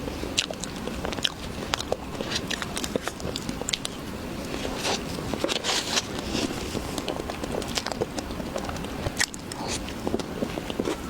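A person biting and chewing jasmine pineapple, with many short, wet, crackling clicks and a denser run of chewing about halfway through.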